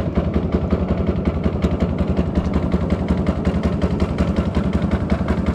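Small fishing boat's engine running steadily, a rapid, even pulsing beat.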